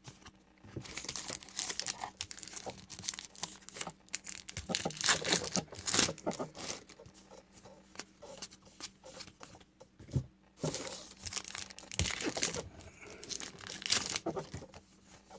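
Trading card pack wrapper crinkling and tearing as it is opened by hand, in irregular bursts.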